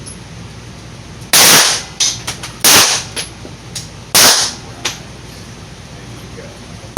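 Pistol shots fired at a steady pace: three loud sharp cracks about a second and a half apart, with fainter shots from neighbouring shooters between them.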